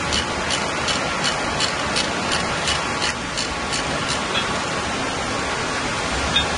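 Steady rushing background noise with a light, even ticking, about three ticks a second, that stops about four seconds in.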